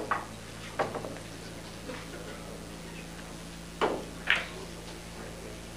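Sharp clicks and knocks of pool balls and cue, a few scattered and the two loudest close together about four seconds in.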